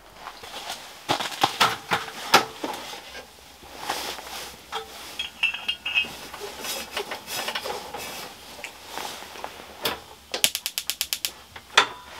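Clicks and knocks of plastic and metal as a 1 lb propane cylinder is uncapped and fitted into a portable propane heater, with a quick even run of about ten clicks near the end.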